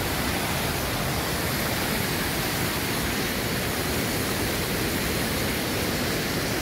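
Steady rush of a rocky mountain stream's rapids, white water pouring over and around boulders, with a waterfall just upstream.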